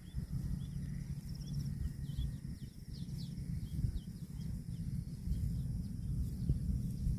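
Outdoor rural ambience: a steady low rumbling noise with a run of short, high chirps, about two a second, and a faint high buzz above them.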